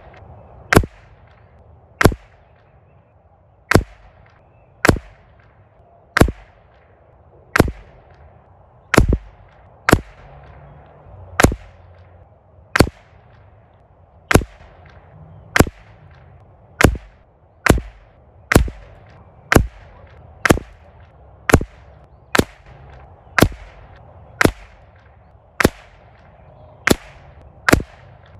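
A run of about two dozen .22LR rifle shots, one roughly every second. Each is a sharp crack with a short fading tail.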